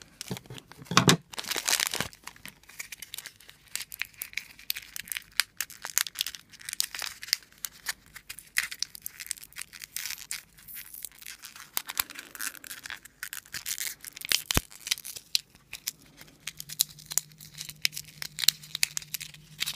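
A small plastic blind-bag wrapper being cut with scissors and pulled apart by hand: crinkling and tearing with many small crackles, loudest about a second in.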